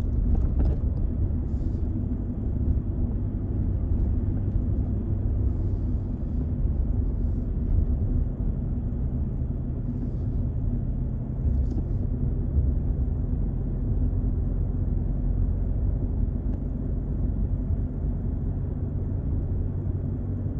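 A steady low engine rumble with an even hum, like a vehicle running at constant speed. It cuts off abruptly at the very end.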